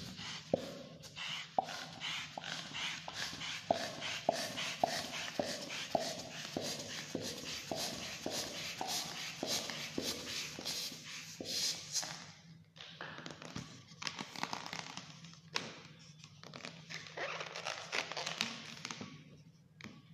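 Hand pump inflating a long latex modelling balloon: quick airy pump strokes about two a second, each with a short squeak of stretching rubber, for about twelve seconds. The strokes then turn irregular and die away near the end.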